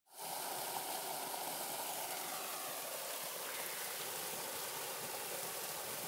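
Small waterfall splashing steadily into a shallow stream pool: an even rush of falling and churning water that fades in at the very start.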